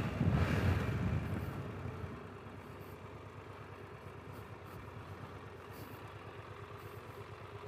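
A motorcycle slowing to a stop: wind rush over the helmet microphone fades over the first two seconds, leaving the engine idling steadily.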